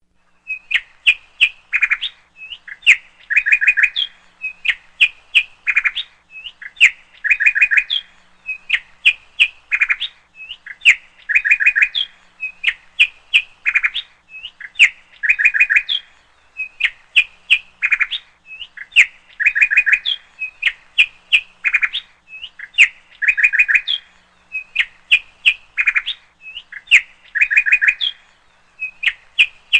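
Bird chirping and tweeting in a short phrase that repeats evenly about every two seconds.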